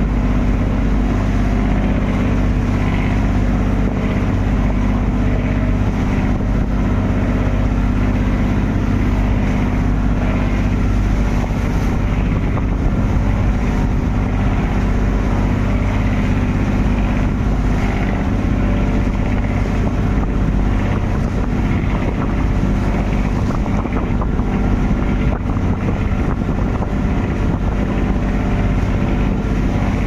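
Fishing boat's engine running steadily while under way, with wind noise on the microphone.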